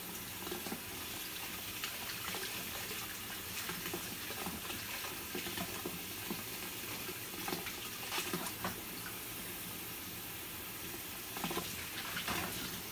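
Kitchen faucet running into a basin of water in a stainless steel sink, a steady rush with small splashes as hands swish and rinse bunches of paragis grass under the stream.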